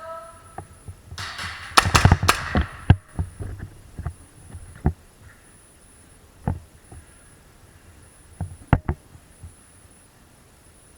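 A quick flurry of sharp clicks and knocks about a second in, then single clicks every second or two.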